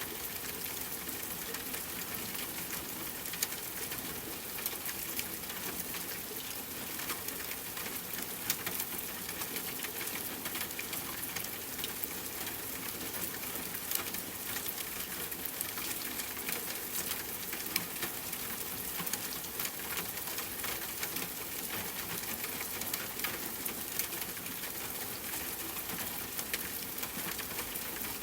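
Steady rainfall blended with a crackling fireplace: an even hiss of rain under frequent small pops and snaps from the fire.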